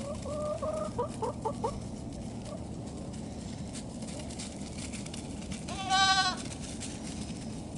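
Goat kid bleating once, loud and short, about six seconds in. A few softer short calls come in the first two seconds.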